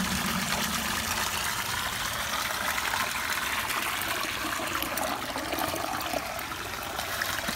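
Water pouring steadily out of a PVC pipe and splashing into a koi pond.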